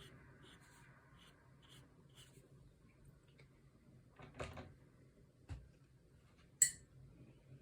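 Faint brushwork and handling of painting tools: light scratchy ticks of a watercolour brush on paper, a couple of soft knocks, and one sharp click about two-thirds through.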